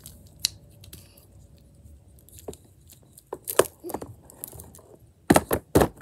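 A homemade fidget strip of wooden clothespin halves taped together, handled and flexed: a few scattered light wooden clicks, then from about five seconds in a quick run of loud wooden clacks as it works against the tabletop.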